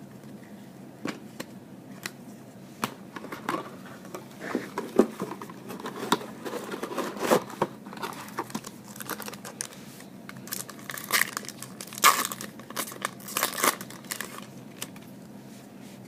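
A trading-card pack wrapper being torn open and crinkled by hand: an irregular run of sharp crackles and rustles, loudest near the middle and again toward the end.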